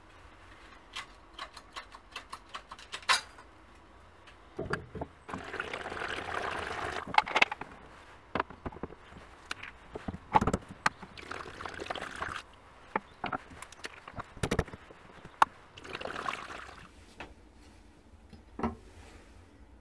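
Liquid being poured and splashing into a metal tray holding a rusty knife blade, in three spells, among scattered sharp clicks and knocks. It opens with a run of light clicks.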